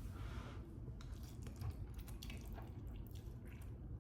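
Wet mouth sounds of someone eating chicken noodles: scattered short slurps and smacks, with a brief airy rush right at the start.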